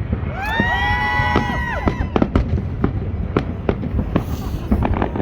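Fireworks going off: a steady run of sharp cracks and bangs. About half a second in, several whistling tones slide up together and hold for about a second and a half before cutting off.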